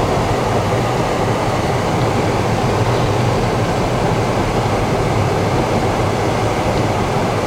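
Steady road and engine noise inside a moving car's cabin, an even rumble and hiss that does not change.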